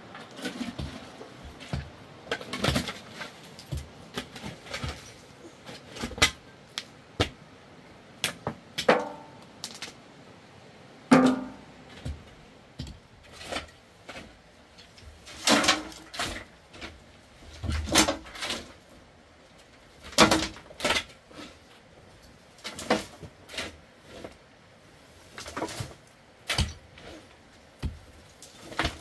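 Shovel and hand tools digging and scraping into stony soil, with loads of earth and rubble clattering into a metal wheelbarrow: irregular scrapes and knocks every second or so, some louder than others.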